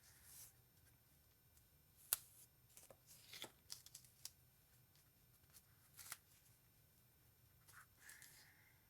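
Quiet handling of craft materials: soft rustles and a few small clicks, with one sharp click about two seconds in.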